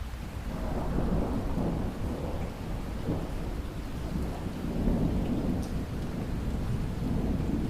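Heavy pouring rain with rolling thunder. The thunder rumbles low, swelling about a second in and again later.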